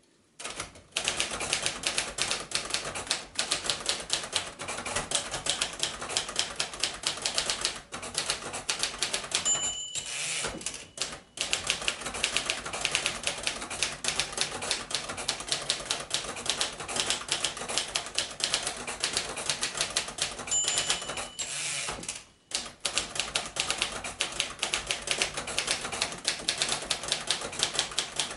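1955 Royal Quiet De Luxe manual typewriter typing at a quick, steady pace, dense with keystroke clacks. Twice a short ringing tone sounds, each followed by a brief pause in the typing.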